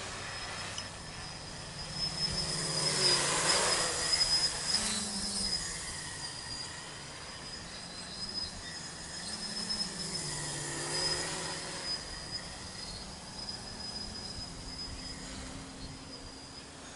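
Home-built tricopter's brushless motors (2216 900kv, 8x4.5 carbon-fibre props) buzzing in flight. The pitch rises and falls with the throttle, and the sound is loudest a few seconds in.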